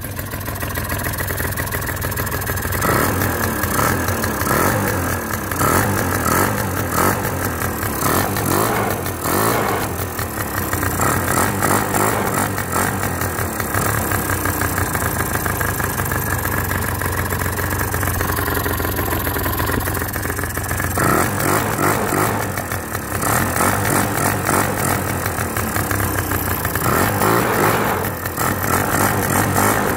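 Peugeot Zenith scooter's small two-stroke engine running, revved up and down several times so its pitch rises and falls between steadier idling.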